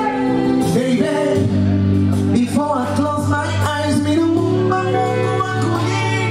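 Live band music with singing over long held low notes and chords, played through a PA during a sound check.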